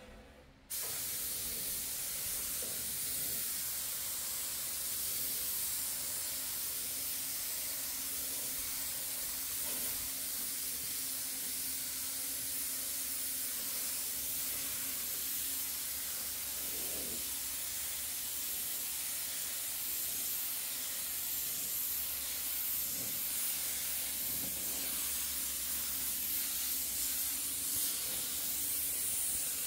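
Compressed-air gravity-feed paint spray gun hissing steadily as it sprays paint onto a steel frame, starting about a second in.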